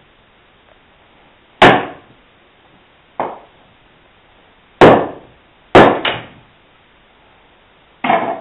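Wooden club striking the back of a froe blade to drive it down into a sweet chestnut billet, splitting off a roof shingle. The blows are sharp and hollow: one about a second and a half in, a lighter one around three seconds, then two close together around five to six seconds. Near the end comes a final ringing crack as the shingle is levered away from the billet.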